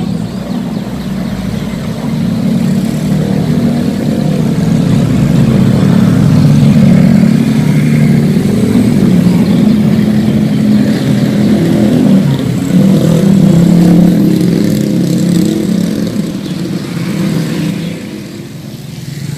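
A motor vehicle's engine running, a steady low hum that grows louder and then eases off, dipping briefly near the end.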